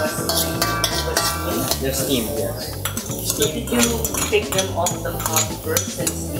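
Metal tongs scraping and clinking against a wok as diced vegetables are tossed and stir-fried, in many quick, irregular strokes.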